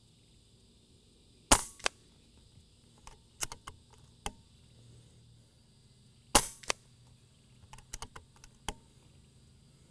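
Two shots from an FX Royale 400 .22 regulated PCP air rifle, fired about five seconds apart. Each is a sharp crack followed about a third of a second later by a weaker crack. Softer clicks of the action being cycled come between the shots and after the second one.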